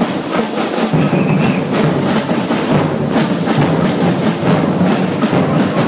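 Samba drum ensemble (batucada) playing together: large metal surdo bass drums and smaller drums struck with sticks and mallets in a dense, continuous rhythm.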